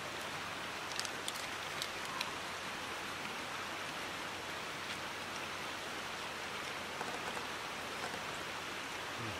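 A steady, even hiss, with a few light clicks between one and two and a half seconds in.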